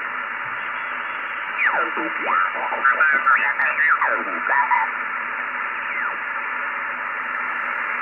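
Yaesu FRG-7000 shortwave receiver hissing with band noise as its main dial is tuned up through the 20-metre band. Between about one and a half and five seconds in, stations sweep past as gliding, garbled tones that rise and fall in pitch.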